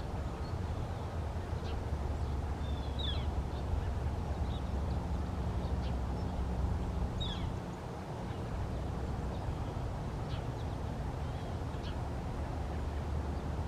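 Northern flicker calling in the background: a handful of short, high calls spread over several seconds, some sliding down in pitch, over a steady low rumble.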